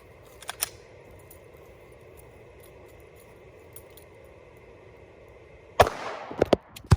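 Faint steady room hum, with two sharp clicks about half a second in and a quick series of loud clicks and knocks near the end, as hard objects are handled.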